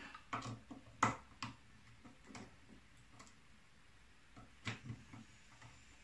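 Irregular faint clicks and taps, a dozen or so with uneven gaps, from speaker wire being handled and fitted into a car amplifier's terminals.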